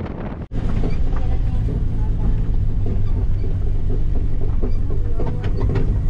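A vehicle's engine running steadily while driving, with wind on the microphone. After a brief dropout about half a second in, the engine is louder and faint voices come through.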